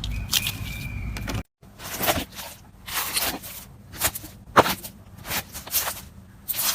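Slime being squeezed and poked by hand, giving a run of sharp, wet clicks and pops about twice a second after a brief cut to silence.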